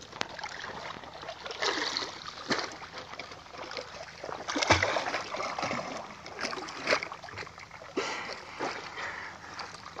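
Sea water splashing and sloshing close to a small boat, in irregular washes, the loudest about halfway through.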